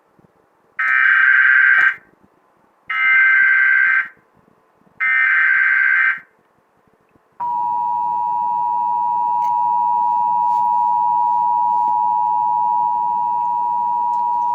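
Emergency Alert System tones: three bursts of SAME digital header data, each about a second long with about a second between them, encoding the alert, here a Required Monthly Test. About seven seconds in, the two-tone EAS attention signal starts and holds steady to the end.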